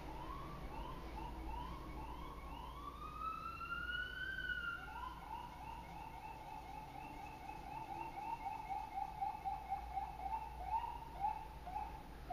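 A siren sounding, first in slow rising sweeps and one long rising-and-falling wail, then switching about five seconds in to a fast yelp of short repeated rising sweeps.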